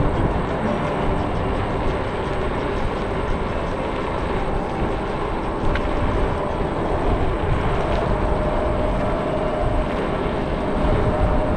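Wind rushing over the microphone and road rumble from an electric scooter in motion, steady throughout. A faint steady whine joins about seven seconds in, and there is one light click near six seconds.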